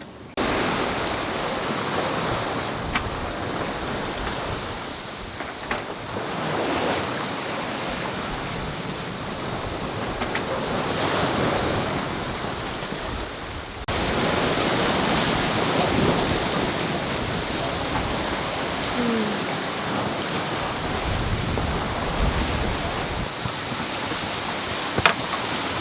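Wind and waves at sea, with wind buffeting the microphone and a few brief knocks; the rush steps up abruptly about fourteen seconds in.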